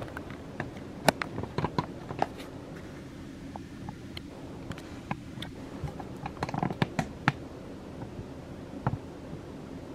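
Handling noise from the camera being carried and moved by hand: scattered light clicks and knocks, bunched about a second in and again around six to seven seconds, over a steady low hum of room tone.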